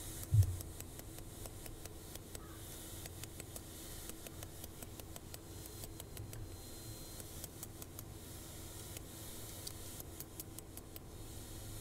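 Light hammer blows on a red-hot steel file tang laid on a brick, straightening it: a run of faint, sharp taps, with one louder low thud about half a second in.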